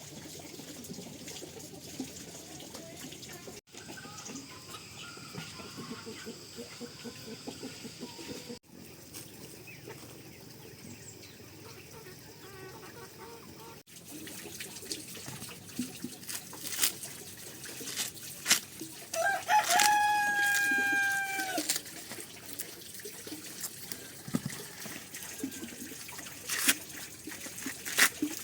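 A rooster crows once, a single held call of about two seconds roughly two-thirds of the way in, the loudest sound here. Scattered sharp clicks and knocks sound around it.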